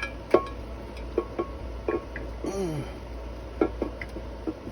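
Scattered metal clinks and knocks, some ringing briefly, as a cylinder head is lowered onto the engine block of a 2.7-litre V6 and shifted to find its seating spot on the head gasket. A short grunt-like vocal sound falls in pitch about halfway through.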